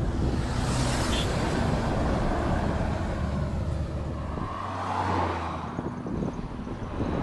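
A Volvo lorry's diesel engine running as it comes up behind and passes, a low drone that drops away a little under six seconds in.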